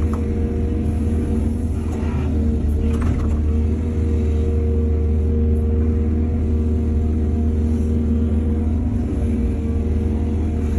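Excavator's diesel engine running steadily under load, with brief rattles about two and three seconds in.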